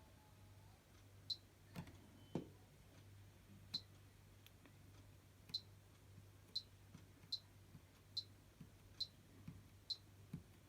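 Faint clicking from the controls of a Zanussi Lindo300 washing machine as they are operated. Two duller knocks come about two seconds in, then about eight short, sharp, high clicks follow roughly a second apart.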